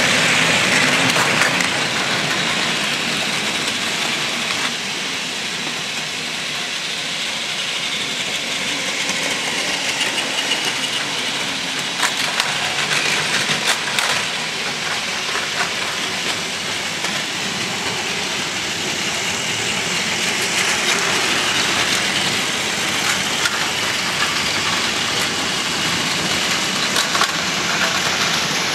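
Several battery-powered Plarail toy Shinkansen trains running on blue plastic track: a steady whir of small motors and gears with wheels rattling over the track. A few sharp clicks come about halfway through.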